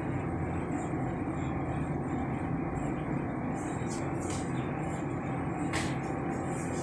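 Steady low hum and noise with a few short clicks and knocks a few seconds in, as the microphone and recording device are handled.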